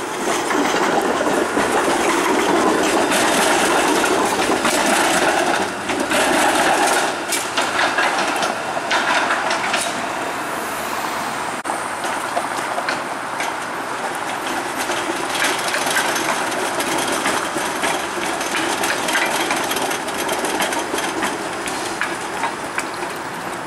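TTC Flexity Outlook streetcar running through a tram-track intersection, its wheels clacking and clicking over the crossings and switches. A broad rumble is loudest in the first six seconds, then many sharp clicks and clacks follow.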